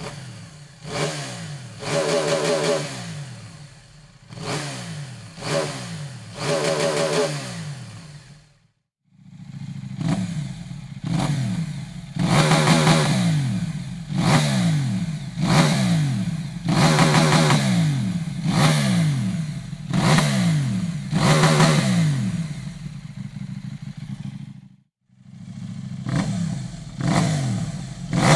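KTM 790 Duke's parallel-twin engine, breathing through a Dominator aftermarket exhaust, revved in repeated sharp throttle blips, each rev falling back before the next, about one a second. Two brief cuts to silence split the revving into three takes.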